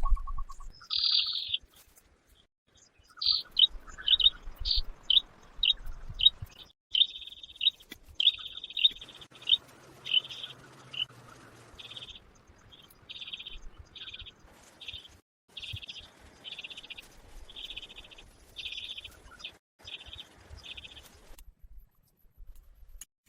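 A bird calling in a long, rapid series of short high chirps, some clipped and some drawn out a little longer, stopping near the end.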